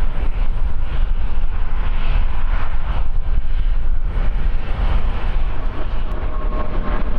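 Strong wind buffeting the microphone, a heavy fluctuating rumble over a steady rushing noise.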